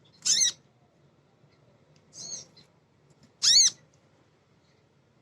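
Female kolibri ninja, a sunbird, calling: three short, sharp, high notes, each rising and falling in pitch, with the middle one fainter. It is a female's call, used as a lure to set male birds singing.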